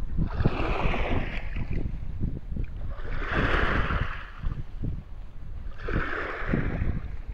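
Wind buffeting the microphone in a low, gusty rumble, with three swells of rushing hiss about three seconds apart.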